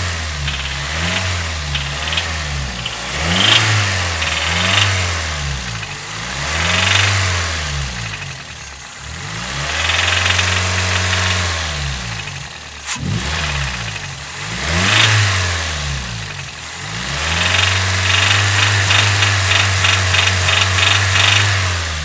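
Toyota Runx's 1NZ 1.5-litre four-cylinder, warm, revved in a series of throttle blips and twice held at higher revs. A rapid, regular knock is heard during the last hold: the connecting-rod knock the engine is known for.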